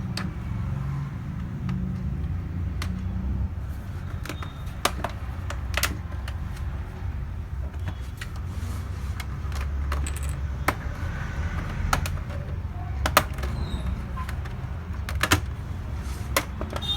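Sharp plastic clicks, about half a dozen spread out and irregular, as the Asus X415JA laptop's bottom cover is pried off and its retaining clips pop loose. Under them runs a steady low hum.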